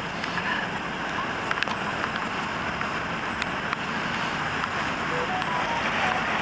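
Steady rushing noise of road traffic with wind on the microphone, with a few faint clicks.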